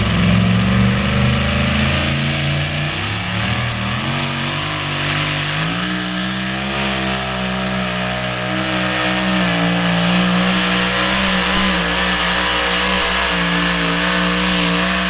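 Two-wheel-drive pulling truck's engine at full throttle as it pulls the sled down the track. The engine note climbs in steps during the first six seconds, then holds high and loud.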